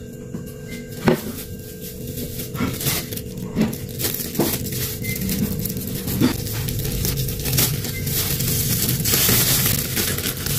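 Thin plastic takeaway bags crinkling and rustling as they are handled and untied, with scattered sharp taps and clicks. The crinkling is densest near the end, as a bag of broth is lifted.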